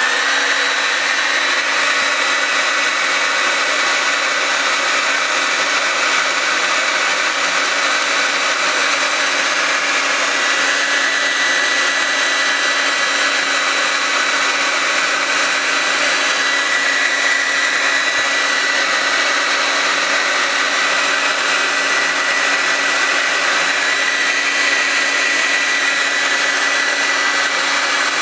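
Ordinary household hair dryer running steadily, a constant rush of air with a thin high whine over it.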